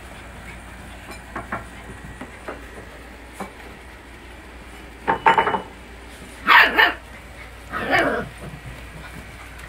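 Puppies barking: three short bursts of barks in the second half, with a few faint taps and clicks before them.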